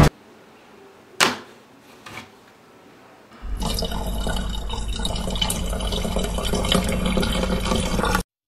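A sharp click about a second in, then from about three and a half seconds a bathroom tap running water steadily into a sink, cut off abruptly near the end.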